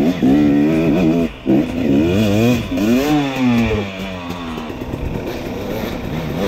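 Dirt bike engine revving up and down under throttle, cut off briefly about a second and a half in. After about four seconds it falls to a lower, rougher running sound.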